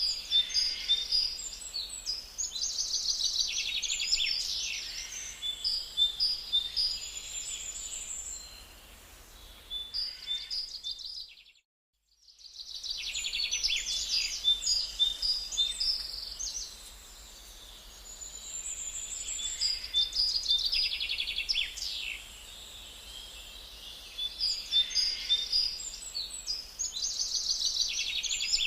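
Birds chirping and calling in quick repeated phrases, cut by a brief complete dropout about twelve seconds in.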